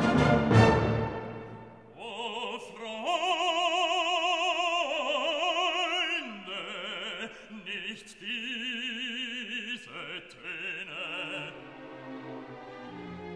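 Background classical music: an orchestral chord fades out in the first two seconds. Then operatic singing holds long notes with heavy vibrato over a light accompaniment, growing quieter near the end.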